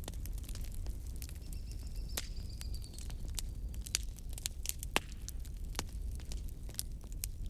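Wood fire in a fireplace crackling, with irregular sharp pops and snaps over a low steady rumble of the flames. A faint thin whistle sounds for about a second and a half, starting about one and a half seconds in.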